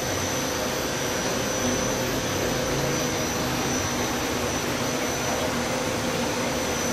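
Belt-driven paper slitting and rewinding machine running steadily, its electric motor and belt drive giving an even whir with a constant hum and a thin high whine.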